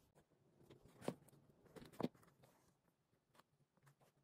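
Near silence with faint hand-stitching sounds: a needle and double thread drawn through leather and fabric lining, with two soft clicks about a second apart.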